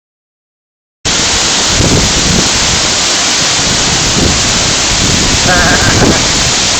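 Steady roar of a large waterfall, starting suddenly about a second in.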